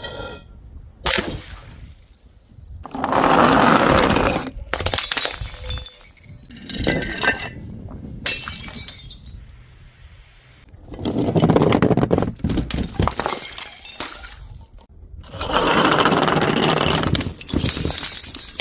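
Glass bottles breaking one after another, about six separate crashes, several trailing on for a second or two as the glass shatters.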